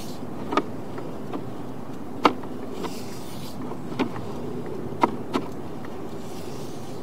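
Sewer inspection camera being pushed through a cast iron pipe: sharp knocks and a brief scrape as the camera head and push cable strike the rusty pipe walls, over a steady hum.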